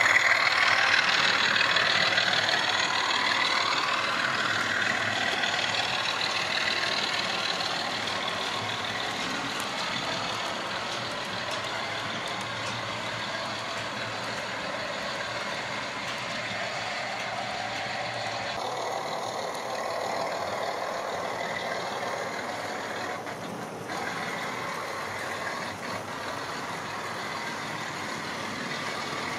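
Electric model railway locomotives running around the layout: a steady whir of the small motors with wheels running on the rails, louder in the first few seconds and then settling.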